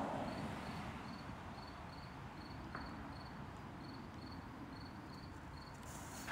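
A cricket chirping steadily outdoors at night, a short high chirp repeated evenly about three times a second over a low background rumble. A hiss fades away during the first second, and there is a faint click near the middle.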